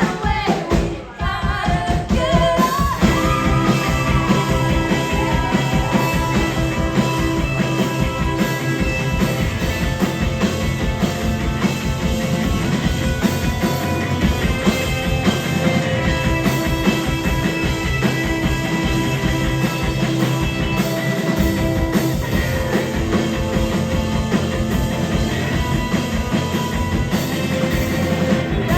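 Live rock band playing a song, with a singer's voice over guitars and drums near the start, then mostly instrumental with a steady driving beat. There is a brief dip in the sound about a second in.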